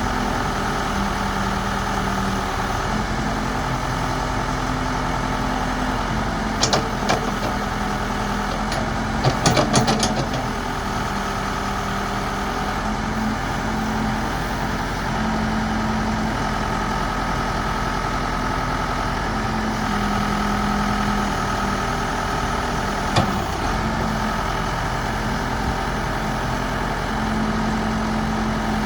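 Case 590 Super L backhoe loader's diesel engine idling steadily, with a few sharp clicks or knocks about a quarter and a third of the way in and once more later.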